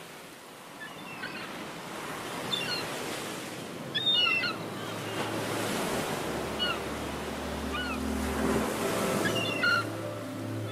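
Ocean surf washing and swelling on a beach, with short bird calls several times over it. A low steady drone comes in about halfway.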